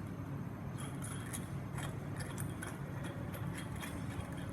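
Light, irregular metallic clicks and taps as the shaft of a power steering pulley installer tool is threaded by hand into a GM power steering pump shaft, over a steady low hum.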